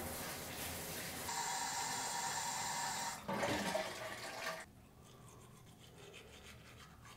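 Shower water running onto a shower tray, then a toilet flushing about three seconds in. Near the end, a toothbrush scrubbing teeth in quick, quieter strokes.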